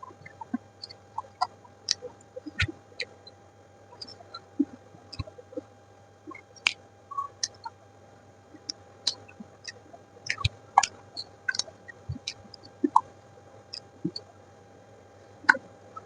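Close-miked eating sounds: chewing with wet mouth clicks and pops, coming irregularly, with a few louder crunches.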